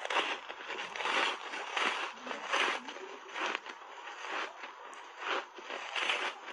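Refrozen ice bar thickly coated in matcha powder being bitten and chewed: a run of irregular, crisp crunches of breaking ice, each about half a second to a second apart.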